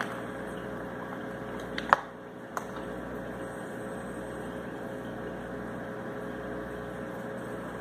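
Steady mechanical hum and whir of a running appliance or fan, with three sharp clicks near the start, the loudest about two seconds in.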